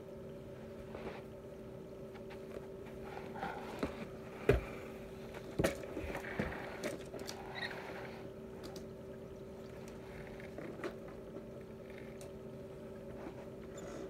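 Knocks, clunks and rustling scrapes as a vacuum cleaner's wand and floor head are handled on carpet, with two sharper knocks about four and a half and five and a half seconds in. A faint steady hum lies underneath.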